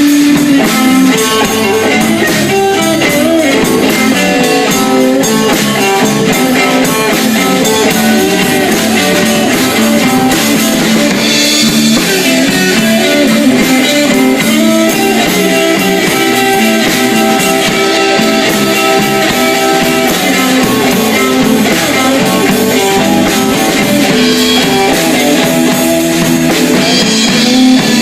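Live blues band playing an instrumental: electric guitar lead over bass and drum kit.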